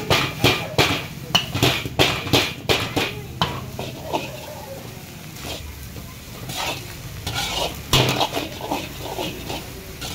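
Metal ladle clanking and scraping against a large wok as fried rice is tossed and stirred, in quick repeated knocks that thin out in the middle and pick up again near the end.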